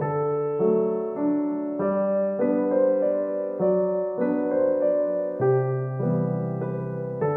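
Background piano music, notes struck about every half second in a gentle, steady melody.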